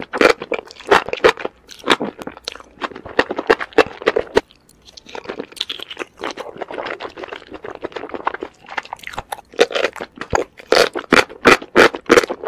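Enoki mushrooms in spicy red sauce being chewed: a rapid run of crisp, wet crunches and mouth clicks, with a short lull about four and a half seconds in.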